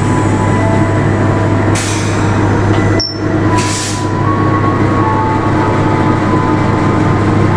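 CC 206 diesel-electric locomotive passing slowly at close range, its engine running with a steady low drone over rail and running-gear noise, with faint thin whining tones. Two short hisses come about two seconds in and again a second and a half later.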